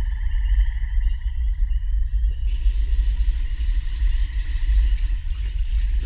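Film soundtrack: a deep, steady rumble under high pulsing tones, with a hiss coming in about two seconds in.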